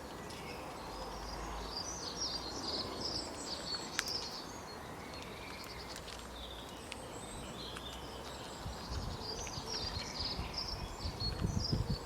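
Birds chirping and singing in short bursts over a steady outdoor hiss, with low rumbling near the end.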